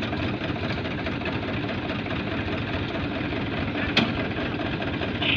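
Tractor diesel engines idling together in a steady rumble, with one sharp clack about four seconds in.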